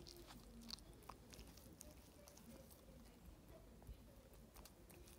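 Boston terrier chewing and nibbling at her own front paw: faint, irregular little clicks of teeth and tongue.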